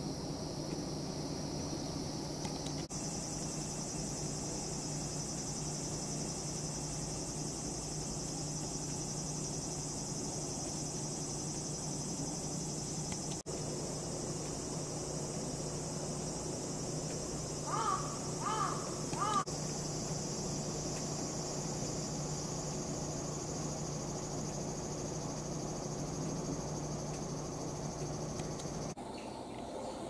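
Steady high-pitched chorus of autumn insects over a constant low hum. About 18 s in, a bird gives three short calls in quick succession.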